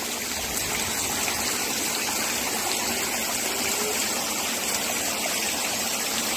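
Heavy rain pouring down steadily onto waterlogged ground and a corrugated sheet roof, a dense, even hiss.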